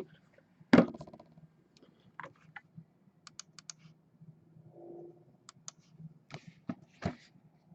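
Scattered knocks and sharp clicks of things being handled: a loud knock about a second in, a quick run of four clicks near the middle, and two more knocks near the end.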